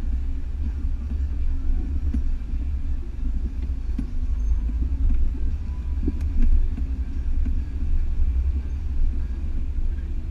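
Off-road vehicle driving slowly along a bumpy woodland dirt trail: a steady low engine rumble, with a couple of sharp knocks from the vehicle about four and six seconds in.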